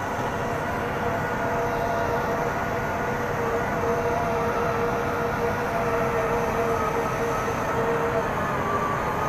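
Heavy construction machinery running steadily: a continuous engine drone with a steady whine on top.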